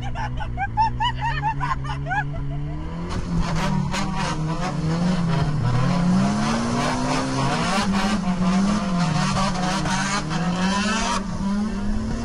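Drift car engine revving hard, its pitch rising and falling again and again as the car slides on a wet track. Short high squeaks come in the first few seconds, then a loud hiss of wind and spray covers most of the rest.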